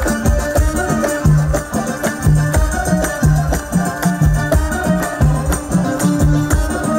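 Moroccan chaabi wedding music: a fast, steady hand-drum beat with a bass line and a melody playing above it.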